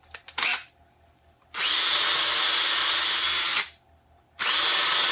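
Cordless drill boring a small starter hole into cast iron, the first step of step drilling, in two steady runs of about two seconds each with a short pause between. A few sharp clicks come just before the first run.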